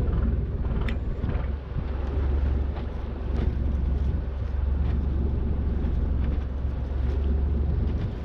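Fishing boat's engine running steadily, a low hum, with wind buffeting the microphone.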